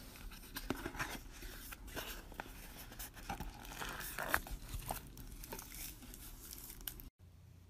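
Unboxing: a cardboard box being opened and handled, with the crinkling of the thin wrapper around an Anker power bank as it is lifted out. Irregular rustles and clicks that cut off suddenly near the end.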